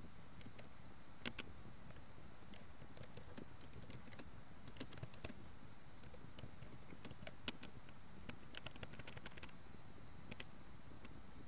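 Computer keyboard typing: irregular single keystroke clicks with short pauses, and a quick run of keystrokes about three-quarters of the way through, over a steady low hiss.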